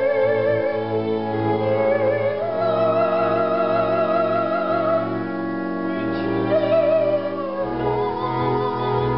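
A woman singing a solo in operatic style, holding long notes with a wide vibrato over an instrumental accompaniment. She moves up to a higher note about two and a half seconds in and changes note again near the end.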